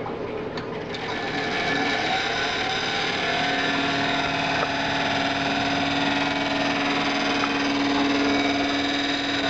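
Fans of a desktop PC running at first power-on, a steady whir that swells about a second in, with a wire catching in the front case fan's blades. A steady hum joins about three and a half seconds in.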